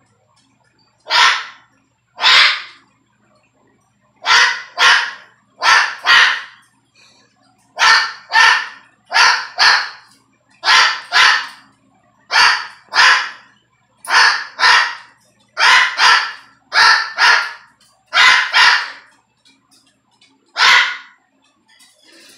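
A white cockatoo and a small dog trading barks, the cockatoo mimicking a dog's bark. There are over twenty short, loud barks, mostly in quick pairs or threes, with a longer pause near the end.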